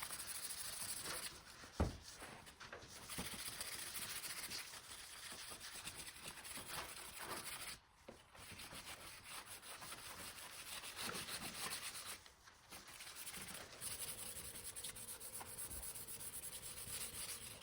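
Sandpaper rubbed by hand in quick back-and-forth strokes over an automotive body part, pausing briefly three times, with a single sharp knock about two seconds in.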